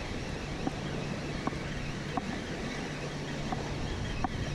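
Spinning reel being cranked steadily to bring in a hooked fish, over a constant wash of light surf and wind on the microphone. A few faint short chirps sound every second or so.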